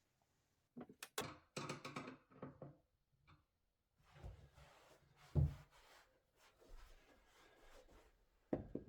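Wooden cabinet doors and fittings being handled: a run of light clicks and knocks, then a dull thud about five seconds in and another knock near the end.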